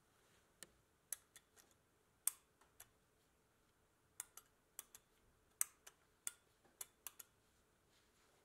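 Light, irregular clicks and clinks of small metal toy-car parts (a spring, washers and a nut on a threaded shaft) being handled and fitted together by hand.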